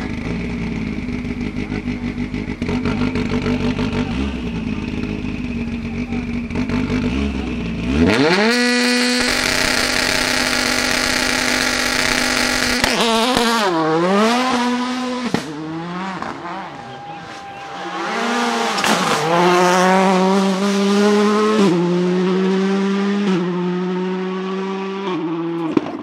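Audi S1 RX rallycross car's turbocharged four-cylinder engine idling, then revved sharply about eight seconds in and held steady at high revs on the launch control. About five seconds later it launches and accelerates away, the revs rising in steps through several gear changes.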